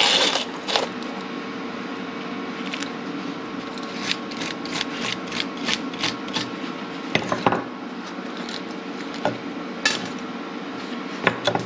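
Hand wire brush scraping in short strokes, about three a second, over the broken exhaust stud on an aluminum cylinder head, with a few knocks of the brush against the metal.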